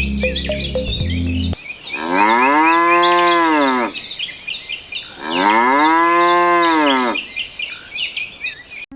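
Cow mooing twice, two long calls about two seconds each, each rising and then falling in pitch, with small birds chirping in the background.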